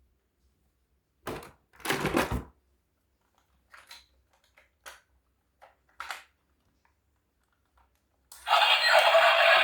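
Toy cars being handled: a few scattered knocks and clicks, the loudest two in the first few seconds. Near the end a loud, continuous sound starts abruptly.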